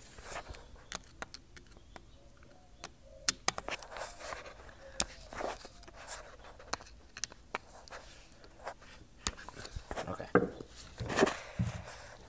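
Irregular small metal clicks and scrapes from a screwdriver working the screws out of the brass-coloured throttle-valve cover on a Honda TRX300EX carburetor.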